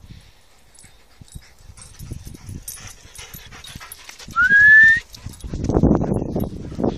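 A dog gives one short rising whine about four seconds in, the loudest sound here, followed by irregular rustling noise.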